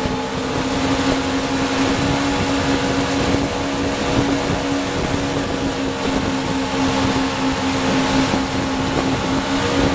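Motorboat engine running steadily at towing speed, its drone holding one even pitch, over a constant rush of wind and water.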